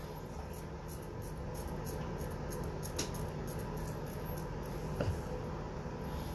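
Faint scratchy strokes of a Mühle R41 open-comb safety razor with a Treet blade cutting stubble, with sharper ticks about three and five seconds in.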